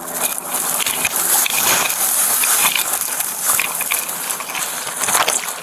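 Irregular rustling and crunching of footsteps pushing through forest undergrowth, over a steady high hiss.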